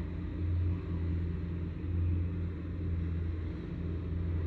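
Machinery running with a steady low hum that swells and eases slightly in level.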